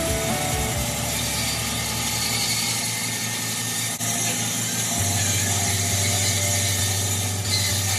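Bandsaw running steadily as its blade cuts into a woody banksia seed pod, with a low hum that strengthens about five seconds in.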